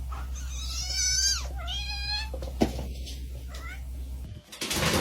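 A cat meowing: two drawn-out meows in a row, each falling in pitch at the end, then a sharp click and a short, fainter meow. A steady low hum runs underneath and stops near the end.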